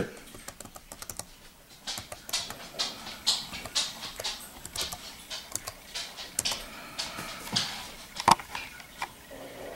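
Typing on a Dell Inspiron 1200 laptop keyboard: irregular key clicks that start about two seconds in, with one louder keystroke about eight seconds in.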